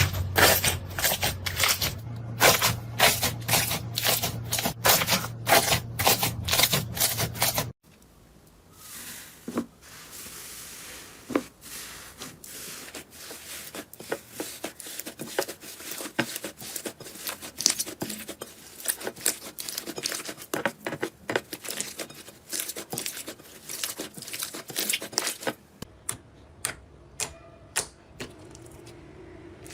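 Slime being squeezed, poked and stretched by hand, giving rapid crackling pops and clicks. The sound changes abruptly about 8 seconds in and again near the end as different slimes follow one another.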